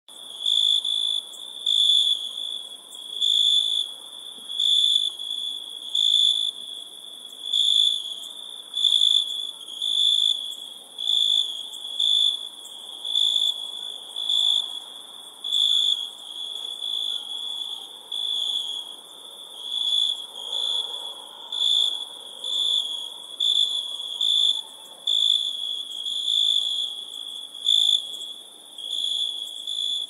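Crickets chirping at night: a steady high trill that swells louder about every second and a half, over a faint hiss.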